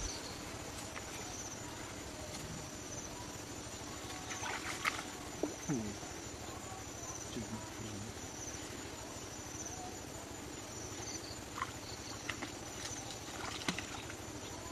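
A short, high chirping call repeats about every second and a half over a steady outdoor hiss. A few brief rustles and splashes come from someone wading at the water's edge.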